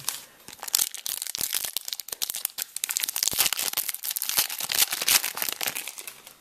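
A Top Gear Turbo Challenge trading-card pack's wrapper being torn open and crinkled by hand: a dense, irregular crackling.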